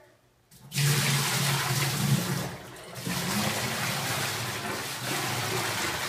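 Hot water poured from a stainless steel pan into a drained commercial dishwasher's tank, splashing and gushing through the compartment to flush it out. The flow eases for a moment about two and a half seconds in, then runs on steadily.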